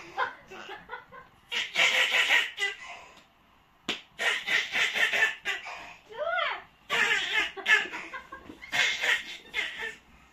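A young child laughing in breathy bursts of quick pulses, with a short rising-and-falling squeal about six seconds in.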